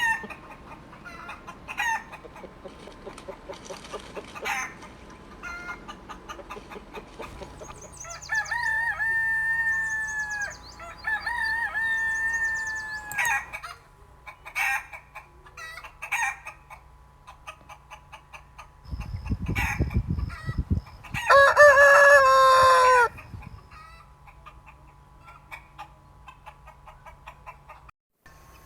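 Rooster crowing three times, with hens clucking in short calls throughout. Two crows come back to back about eight seconds in, and a third, louder crow comes about three-quarters of the way through, just after a low rumble.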